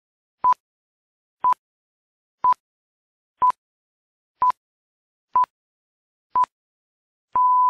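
Film-leader countdown beeps: a short beep of one steady pitch once each second, seven times, then a longer beep of the same pitch near the end that marks the end of the countdown.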